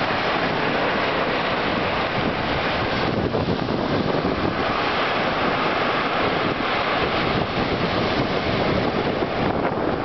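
Waves breaking on a sandy beach in high winds, with wind buffeting the microphone: a steady, loud rush of noise.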